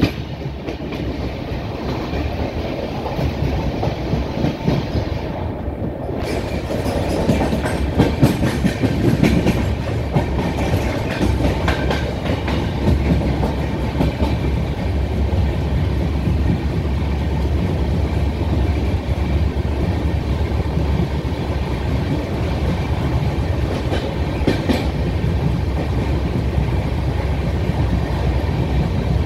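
A train running along the track, heard from inside a moving carriage: a steady low rumble with wheels clattering and clicking over the rails.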